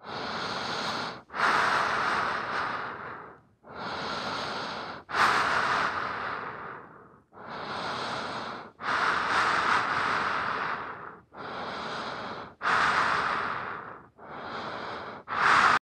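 Slow, deep human breathing close to the microphone: five in-and-out breaths, each breath out louder and sharper-edged than the breath in before it. The last breath out is cut off suddenly.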